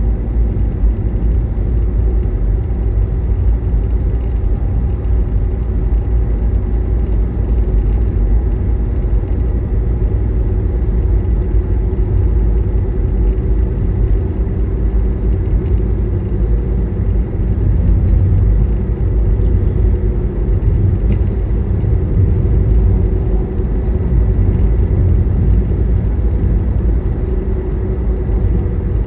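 Steady low rumble of a car driving at road speed, heard from inside the cabin: tyre and engine noise with a faint steady hum.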